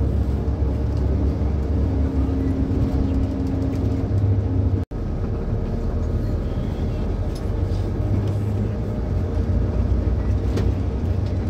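Inter-city bus engine and road noise heard from inside the cabin: a steady low drone with a humming tone over it. The sound cuts out for an instant about five seconds in.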